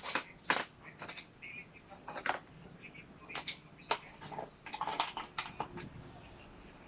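Irregular clicks and clatters of sterilized baby-bottle parts being lifted out and set down, about a dozen sharp knocks spread unevenly, busiest toward the middle.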